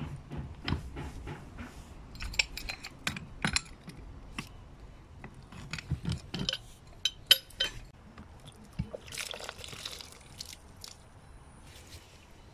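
Pipe wrench on a galvanized steel pipe union, the union nut being worked loose: a run of irregular sharp metallic clicks and clanks as the wrench jaws bite, slip and are reset. A brief hiss comes about nine seconds in.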